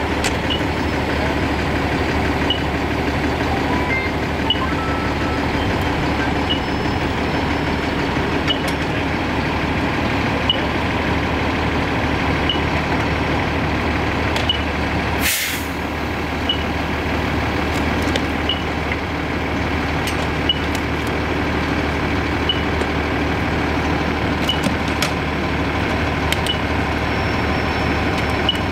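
A parked fire engine's diesel engine running steadily, with a short high chirp repeating about every two seconds. About fifteen seconds in there is one short burst of hissing air, like an air brake.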